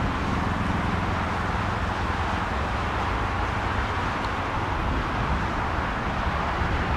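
Steady rushing jet noise from the CFM LEAP-1A engines of an Airbus A321neo on final approach, over a low rumble.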